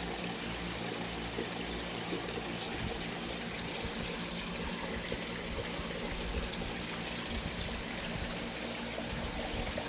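Water trickling steadily down a small pump-fed creek into a pond, over a steady low hum.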